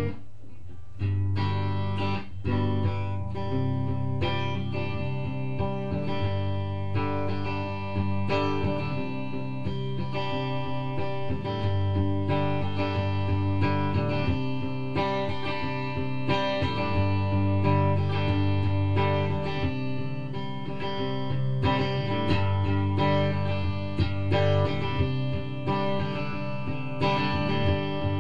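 Guitar music: plucked and strummed guitar notes over a steady low bass part.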